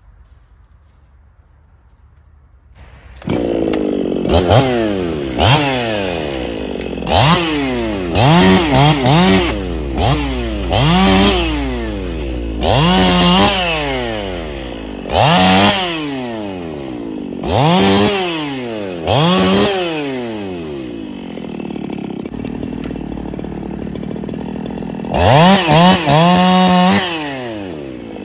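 Two-stroke chainsaw engine running, coming in about three seconds after a quiet start. Its throttle is opened and released about ten times, each time the pitch climbing fast, holding briefly and dropping back, with a spell of steady idling before a last rev near the end.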